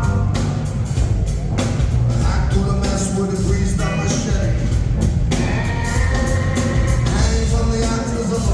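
Live rock band playing an instrumental stretch of the song, with a steady drum beat and heavy bass.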